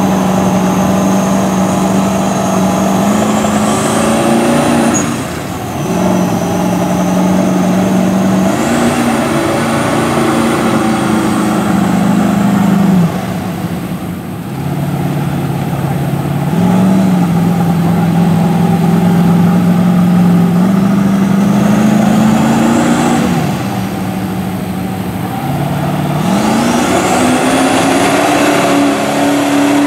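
Turbocharged 5.3-litre V8 of a mud truck pulling through deep mud, held at steady revs. The throttle is let off three times, and each time the revs drop away and build back up. A high turbo whistle climbs as it spools and falls away each time the throttle is released.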